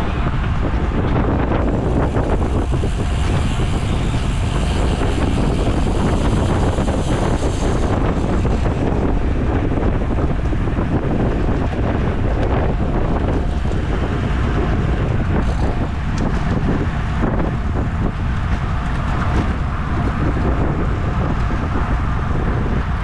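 Steady wind rush buffeting the microphone of a camera carried on a bicycle at racing speed, mostly a low rumble with a hiss above it.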